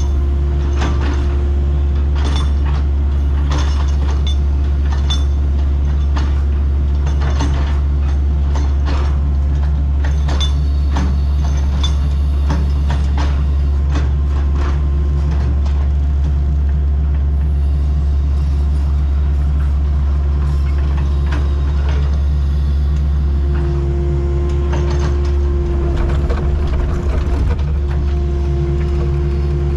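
Excavator's diesel engine running steadily, with a hydraulic whine that grows louder about two-thirds of the way through. Frequent clanks and rattles in the first half.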